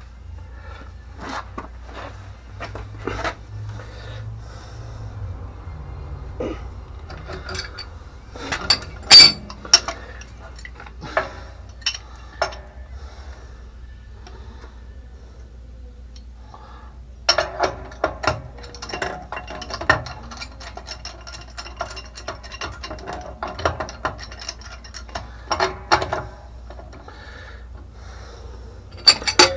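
Hand tools clicking and knocking on metal pump fittings: scattered sharp knocks with one loud one about nine seconds in, then a dense run of rapid clicking in the second half.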